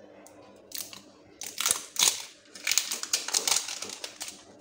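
Clear plastic wrap crinkling in irregular bursts as it is pulled off a small jar of face mask by hand, starting just under a second in.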